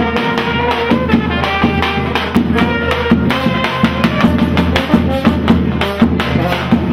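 A brass band playing lively dance music: brass instruments carrying the tune over a steady drum beat.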